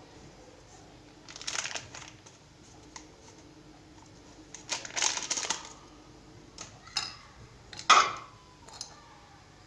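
Hands rubbing and mixing flour in a plastic bowl: a few short rustling, scraping bursts. Near the end comes a sharp knock with a brief ring as the small glass dish is handled.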